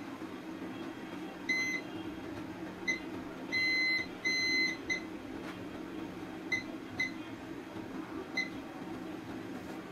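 Digital multimeter's continuity buzzer beeping as the probe touches pads on a phone logic board: about eight short beeps, two held about half a second in the middle, over a steady low hum. Each beep marks a point that reads low resistance to ground.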